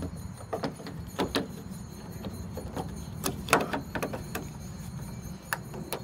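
Sharp plastic-and-metal clicks and knocks of a replacement exterior door handle being pressed and seated into a Toyota Tacoma's door, with the loudest cluster of clicks about halfway through.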